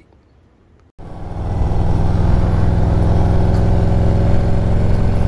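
After a brief quiet, the 2021 Harley-Davidson CVO Road Glide's Milwaukee-Eight 117 V-twin comes in about a second in, running steadily as the bike is ridden along a road, a loud low rumble.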